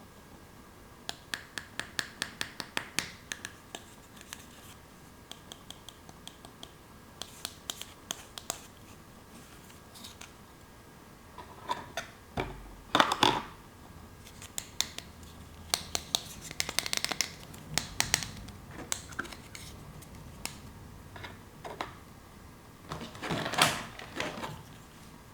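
Small plastic toy pieces being handled: runs of quick light clicks and taps, with a few louder scrapes and rustles about halfway through and near the end.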